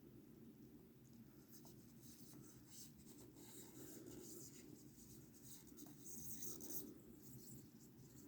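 Faint rustling and scratching of a paper instruction leaflet being handled, over near silence, louder for a moment a little before the end.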